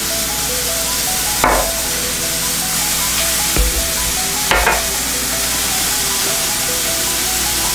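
Chicken frying in a pan, a steady sizzle, under faint background music. Three sharp clicks and knocks about one and a half, three and a half and four and a half seconds in, as sauce bottles and spice jars are handled and opened.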